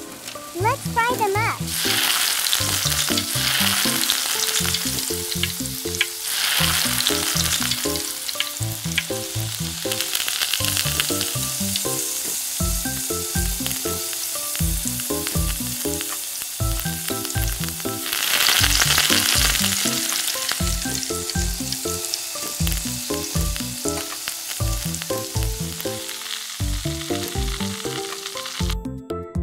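Food frying in hot oil: a steady sizzle that swells louder a few times, with a light tune playing underneath.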